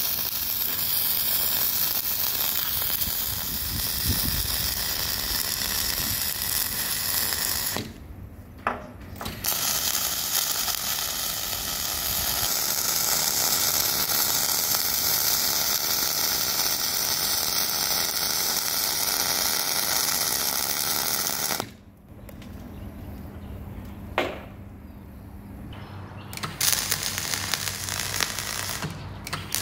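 Wire-feed arc welding with gas-shielded flux-cored wire (Lincoln DC-400 power source with LN-25 Pro feeder, argon/CO2 gas) on steel plate: a steady crackling, sizzling arc as tack welds are laid. The arc stops briefly about a quarter of the way in, stops again for several seconds about three-quarters of the way through, and strikes up again near the end.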